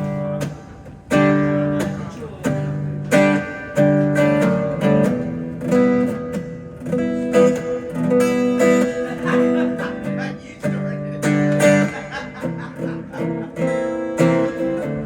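Acoustic guitar strumming chords in a regular rhythm, the instrumental lead-in to a song.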